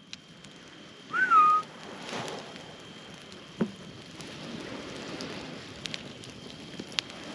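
A person whistles once to call a dog: a short whistle that rises and then holds level. Underneath, a campfire of dry palm fronds crackles and hisses steadily, with a few sharp pops.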